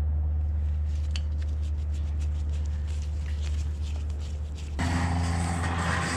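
2004 Yamaha V-Star 1100's air-cooled V-twin running at idle with light ticking, while its carburetors are adjusted with a long screwdriver after cleaning. About five seconds in, the engine note grows fuller and a little louder.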